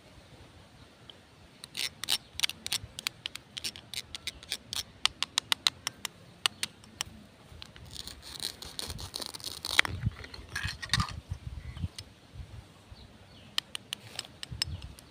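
Plastic toy knife, toy food pieces and a plastic cutting board clicking and tapping in quick runs of sharp clicks, with a rasping scrape about eight to ten seconds in as the cut toy pieces are worked apart.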